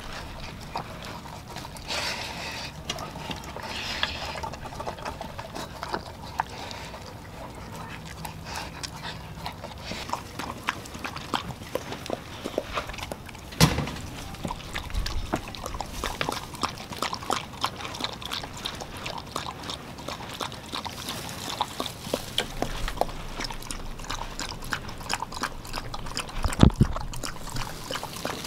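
Dogs eating wet ground raw dog food from stainless steel bowls: steady wet lapping, licking and chewing, full of small irregular clicks and smacks. There is one sharper click about halfway and a louder thump near the end.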